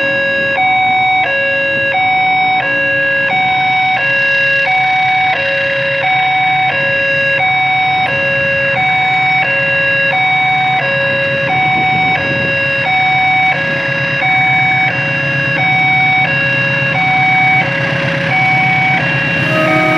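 Railway level-crossing warning alarm sounding for an approaching train: an electronic two-tone signal switching evenly between a lower and a higher note, about two notes a second.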